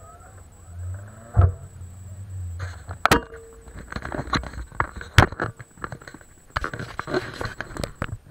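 A car engine's low hum that stops about three seconds in, followed by a string of sharp clicks, knocks and rustling from handling inside the car.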